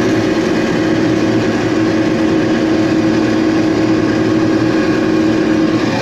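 John Deere 6620 combine running under load while harvesting corn, heard from inside its cab: a steady mechanical drone with a steady whine over it that drops away near the end.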